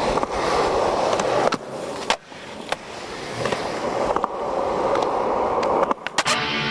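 Skateboard wheels rolling over concrete with a steady rumble, broken by several sharp clacks of the board. A cluster of clacks comes near the end as the board pops off a ramp into the air.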